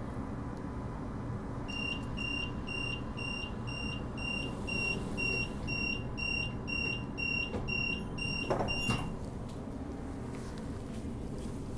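Door-closing warning beeps on a Transperth Bombardier B-series electric train: a short high beep repeated about three times a second for some seven seconds while the doors slide shut, ending with a short thump. Underneath is the steady hum of the stationary train.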